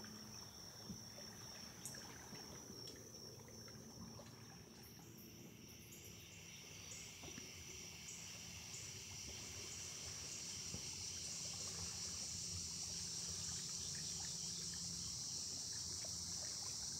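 Dusk insect chorus: a steady high-pitched buzzing that swells and grows louder from about five seconds in. Under it are faint small splashes and trickles of deer wading and feeding in shallow pond water.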